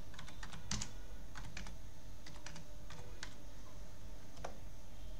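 Computer keyboard being typed on: irregular key clicks, a few in quick succession and then short pauses.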